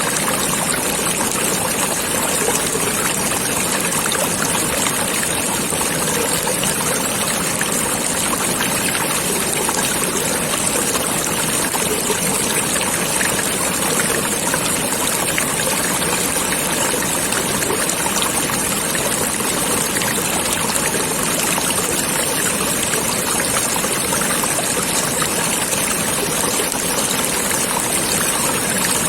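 Stream water flowing and babbling steadily.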